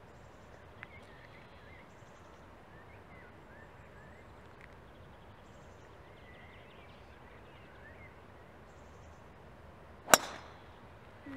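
A golf club striking a teed ball once, about ten seconds in: a single sharp crack off the tee.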